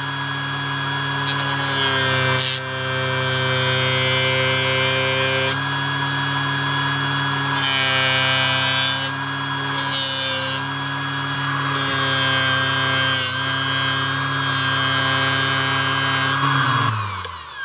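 Small benchtop polishing machine's electric motor running at a steady high speed, with a hiss and rub that comes and goes as a knife blade is pressed against its polishing wheel charged with GOI paste. Near the end the motor's pitch falls as it winds down.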